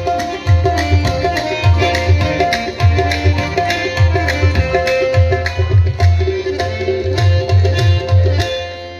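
Live qawwali music through loudspeakers: tabla drumming in a steady rhythm over a held harmonium drone. The drumming stops near the end.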